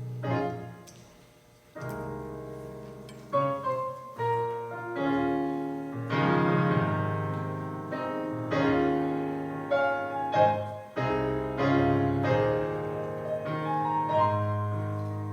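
A piano-sounding keyboard playing slow sustained chords as the introduction to a gospel song, with a short pause about a second and a half in before the chords carry on.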